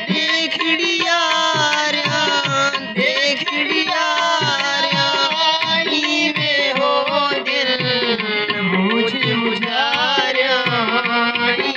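Live Saraiki folk music: hand drums keep a steady rhythm under a melody whose pitch slides and bends, without a break.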